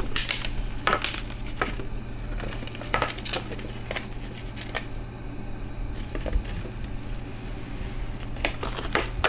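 A calico kitten licking and lapping at a styrofoam food tray on a wooden floor, with irregular small clicks and taps as tongue and tray knock about, and a quick cluster of taps near the end.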